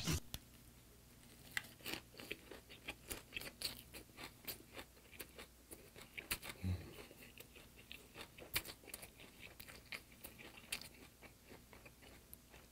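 Close-miked chewing of a mouthful of ssambap, braised sardines and rice wrapped in a leaf, with irregular wet crunches and mouth clicks a few times a second.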